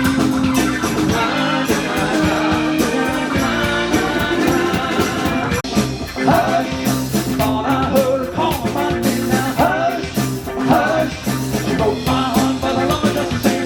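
Live band with a horn section playing an instrumental passage. From about six seconds in, a lead line bends up and down over the band.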